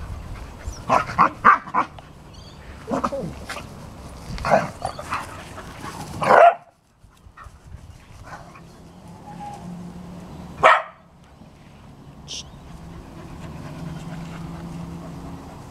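Dogs barking in play: a string of short barks over the first six seconds, the last one loudest, then a single bark a little past the middle.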